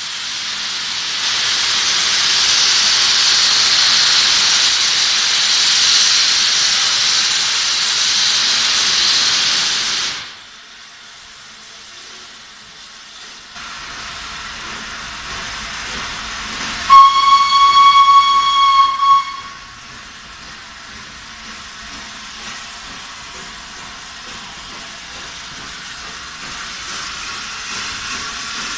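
Steam locomotive 60163 Tornado, a Peppercorn A1 Pacific, hissing loudly with escaping steam for about ten seconds, stopping abruptly. After a quieter stretch its steam whistle sounds once for about two seconds, one clear tone, and then the locomotive's running sound grows louder as it draws nearer.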